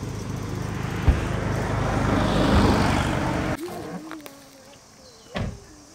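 Road vehicle noise: a steady low engine hum under a rushing noise that swells about two to three seconds in, then cuts off suddenly. A quieter stretch follows, with a single sharp knock near the end.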